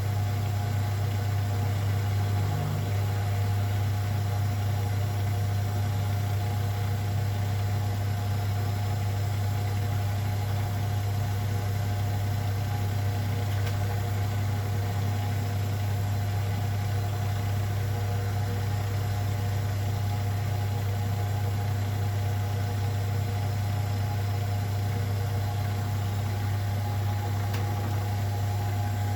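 Zanker EFX 4875 washing machine in its 1800 rpm final spin, the drum and motor running at a steady speed with a constant low hum and a steady whine above it.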